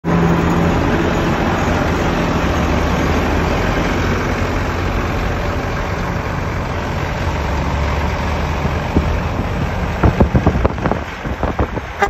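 Diesel engine of a Mack concrete mixer truck running close by, a steady drone with road noise. A few sharp knocks come near the end.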